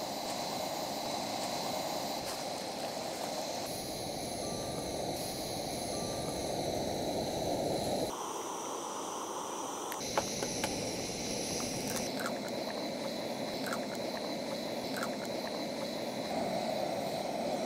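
Portable gas-canister camp stove burning under a pot, giving a steady hiss, with a few faint clicks in the second half.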